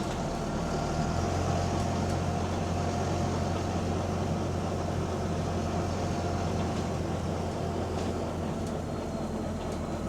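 Double-decker bus's diesel engine running with a steady low drone, heard from inside the bus, with a faint whine in the first few seconds.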